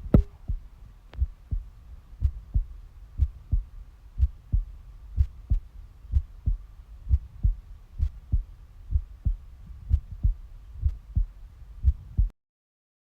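Human heartbeat: a steady lub-dub rhythm of paired low thumps at about one beat a second, with a faint steady hum behind it. The sound cuts off abruptly near the end.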